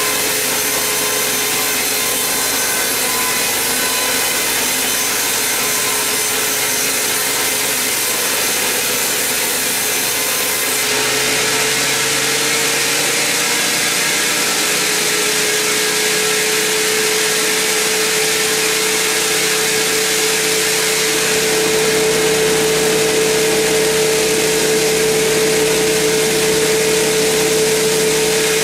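Large band sawmill blade cutting through a big mahogany log with a steady rasping hiss. About a third of the way in, the cut ends and the saw runs on free, a steady tone from the machine climbing slightly in pitch and then holding.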